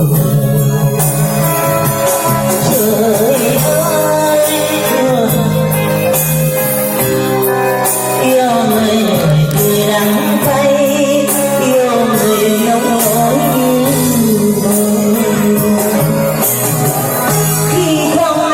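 A song playing: a melody with singing over a steady instrumental accompaniment.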